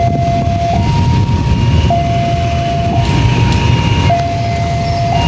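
Railway level-crossing warning alarm sounding: an electronic two-tone signal alternating between a low and a higher pitch about once a second, the crossing closing for an approaching train. Under it runs a steady low rumble.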